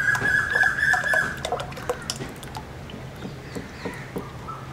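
Thick red mud slurry being poured from a plastic tub into a cloth strainer, with wet spattering and dripping. A high, drawn-out squeal sounds over the first second.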